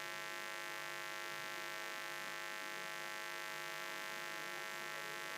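Steady electrical mains hum in the event's sound system, a buzz of many even tones that holds level and unchanged throughout.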